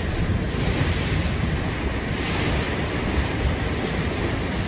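Storm surf surging and breaking over a waterfront deck and its pillars, a steady rushing wash with a brighter surge about two seconds in. Wind buffets the microphone.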